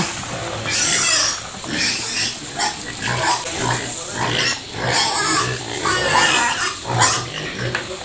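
A pen of growing pigs grunting and eating at a concrete feed trough, short grunts coming about twice a second, as dry pellet feed is poured in from a bucket.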